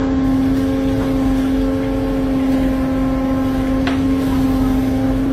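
Fishing boat's deck machinery running with a steady, unchanging hum, one strong pitch with overtones over a low rumble. A short sharp knock about four seconds in.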